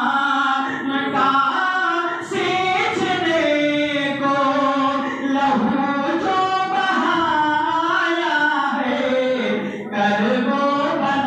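A man's voice chanting a melodic devotional recitation through a microphone, unaccompanied, in long held notes that waver and slide in pitch, with short breaks for breath about 2, 5 and 10 seconds in.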